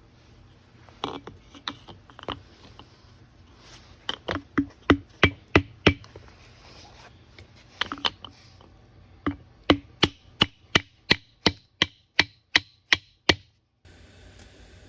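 Repeated sharp hammer strikes at about three a second: a few scattered taps, a run of about seven, then a longer run of about a dozen that stops abruptly.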